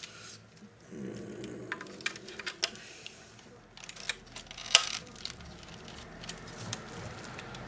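Small clicks, ticks and rustling of wires and plastic parts being handled and tucked into the open plastic chassis of a Philips D6350 cassette recorder, with one sharper click just after halfway.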